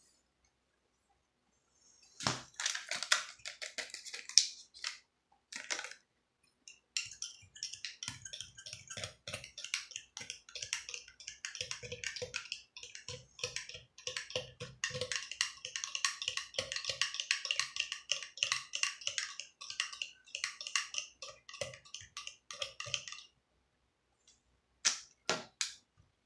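Instant coffee powder poured from a sachet into a mug, then a metal spoon stirring in a ceramic mug, clinking rapidly against the sides for about fifteen seconds before it stops. A few separate clinks near the end.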